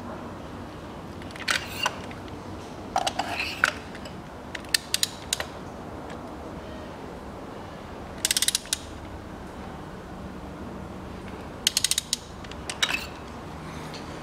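Socket ratchet clicking in about six short runs as spark plugs are tightened down by about three-quarters of a turn, the pawl ticking on each back-stroke of the handle.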